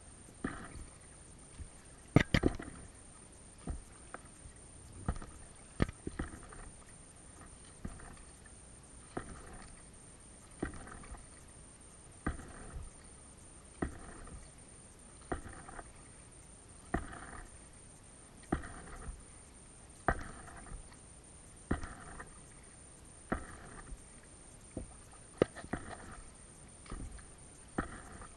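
Paddle strokes from an Itiwit x500 inflatable kayak: a short splash about every second and a half as the paddle blades dip into the water, with a few sharp knocks, the loudest about two seconds in.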